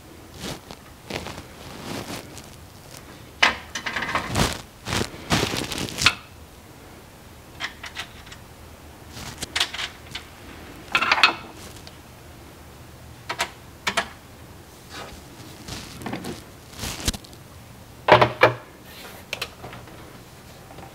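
Irregular metallic clicks and clatters of a bolt and socket being handled and fitted through an aluminium extrusion cabinet frame. The loudest clatters come about four to six seconds in, again around eleven seconds, and near the end.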